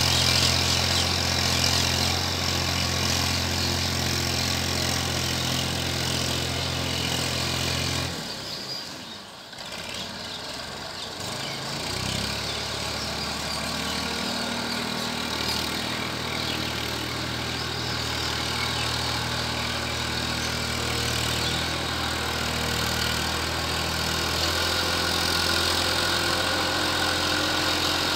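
Massey Ferguson 1035 DI tractor's three-cylinder diesel engine running steadily under load while puddling a flooded paddy field. Its sound fades and breaks up for a few seconds about a third of the way in, then returns and grows a little louder near the end.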